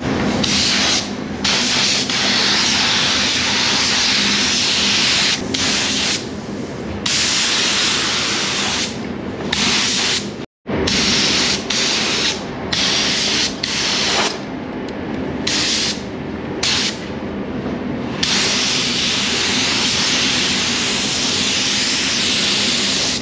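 Compressed-air paint spray gun spraying paint onto truck body parts: a loud steady hiss in long passes, broken again and again by short pauses between passes.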